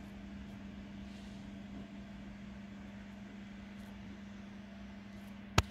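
Steady low hum with room noise, and one sharp click near the end.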